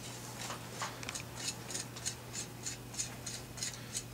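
Barrel nut of a DRD Paratus takedown .308 rifle being run down by hand onto the receiver threads, giving a steady series of light clicks, about three or four a second.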